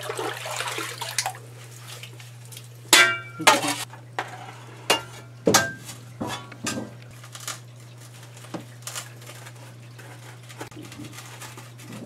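Steel shovel scraping and clinking in wet mud and shallow water, with sloshing and splashing as a plastic bucket is worked down into a flooded sump pit. The two loudest knocks come about three seconds in, each with a short metallic ring, over a steady low hum.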